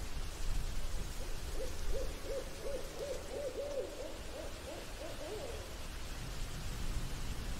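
An owl hooting: a quick run of about a dozen short, rising-and-falling hoots, roughly three a second, that starts about a second and a half in and stops after about four seconds. A steady low rumbling noise runs under it.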